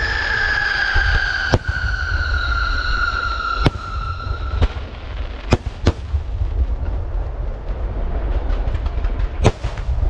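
Fireworks display: aerial shells bursting with sharp bangs at irregular intervals, about six in all. Under the first half runs a long falling whistle that dies out about halfway through. A steady low rumble sits underneath throughout.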